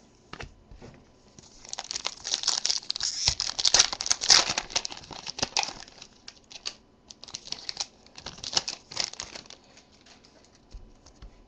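Foil wrapper of a Topps Strata trading-card pack being torn open and crinkled by hand: a dense crackle starting about a second and a half in and loudest around four seconds, then lighter, scattered crinkles that die away near the end.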